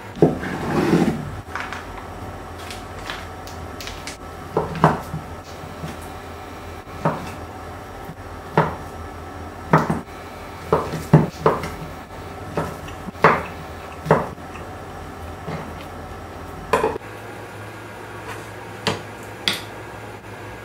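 Kitchen utensils and dishes clinking and knocking during food preparation: a short scraping clatter at the start, then a string of sharp clinks and knocks at irregular intervals. A steady low hum runs underneath and cuts off about three-quarters of the way through.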